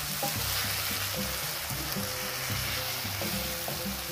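Minced beef and onions sizzling in a non-stick frying pan with freshly added tomato purée, a wooden spatula scraping and stirring through the mix. Background music plays underneath.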